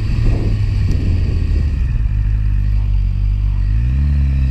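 Suzuki GSX-R sportbike's inline-four engine running at low revs as the motorcycle rolls slowly, then revving higher near the end as it pulls away.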